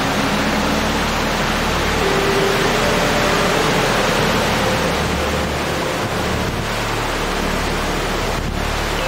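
Steady, loud rush of falling water, with soft sustained notes of background music faintly underneath.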